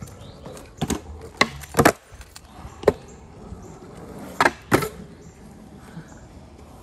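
A skateboard's wooden deck and wheels knocking sharply against pavement, about half a dozen separate clacks spread over several seconds.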